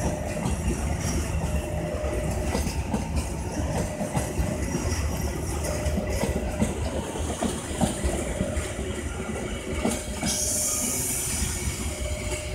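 Jayabaya passenger train moving slowly, its wheels rumbling and clacking over the rail joints with short, recurring squeals. A hiss rises about ten seconds in.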